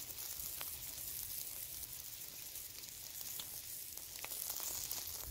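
Bacon-and-egg jaffles cooking in cast-iron jaffle irons on campfire coals: a steady high sizzle of bacon frying against the hot iron, with occasional sharp pops.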